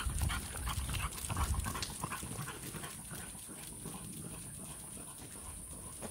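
Dogs on leads walking on asphalt: quick, irregular clicking steps, busiest over the first two seconds or so and then fainter, with dog sounds among them.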